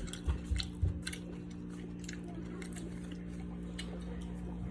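A person chewing food, with scattered soft mouth clicks and smacks, busiest in the first second.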